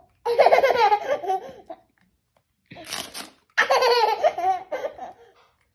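A toddler laughing: two long bouts of laughter with a short, fainter laugh between them.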